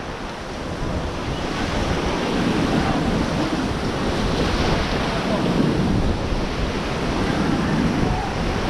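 Steady rush of river water from a raft, with wind buffeting the microphone.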